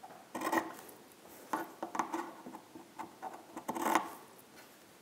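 Scissors snipping through two layers of cotton fabric: about six short snips a second or so apart, clipping the corners of a sewn mask square to cut bulk before it is turned right side out.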